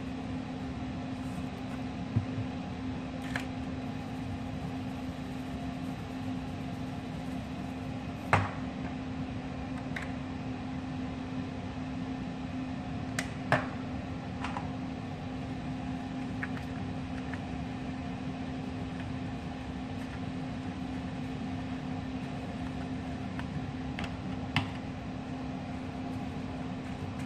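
A steady low hum, like a fan or kitchen appliance running, with a few short sharp clicks and taps as spice shakers are opened, used and set down on the counter.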